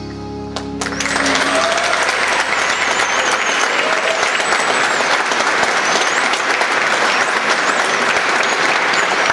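A song's backing music ends about a second in, and an audience breaks into loud, sustained applause. A high wavering whistle rises over the clapping.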